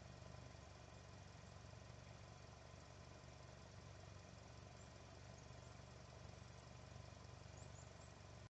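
Near silence: a faint steady low hum with background hiss.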